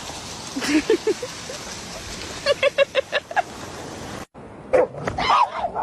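A pet dog yips a few times, then gives a quick run of about eight short yappy barks. After a sudden break, more drawn-out, bending vocal sounds from a dog follow near the end.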